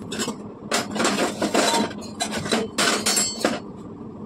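Stainless steel kitchen utensils clinking and scraping: a spoon and ladle knocking against steel pots and vessels in several irregular strokes, some with a short metallic ring.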